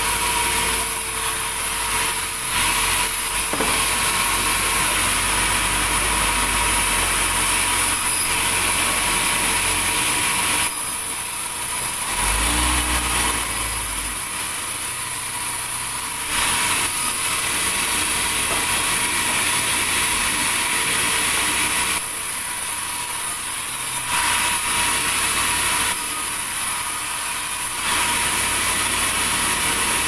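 Large vertical band saw of a sawmill running and cutting lengthwise through a red durian log, its sound stepping between louder and quieter stretches every few seconds.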